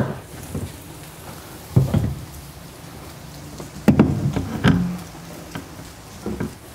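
Dull knocks and clunks from a bedside rack panel bumping against the side wall of a pickup bed as it is set in place. There is one thump about two seconds in, a cluster of knocks around four seconds, and a lighter knock near the end.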